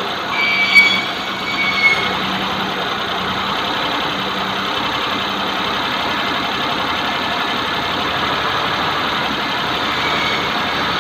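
Maruti Suzuki 800's three-cylinder engine idling, lightly blipped twice in the first two seconds, each blip with a short high tone, then running steadily. The AC compressor belt is off, and the hum that the mechanic traces to a loose AC compressor bearing is absent.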